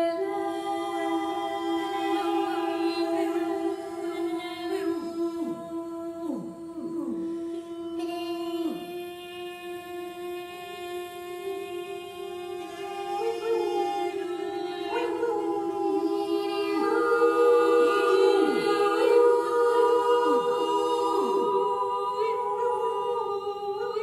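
Several unaccompanied voices imitating wading birds: a steady hummed drone with a second held note above it, crossed by overlapping calls that swoop sharply downward, in clusters a few seconds in and again past the middle.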